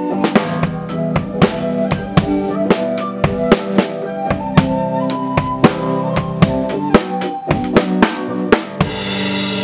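A drum kit playing a steady beat with the snare drum to the fore, tightly tuned and cracking, with bass drum hits. Other band instruments hold sustained notes underneath.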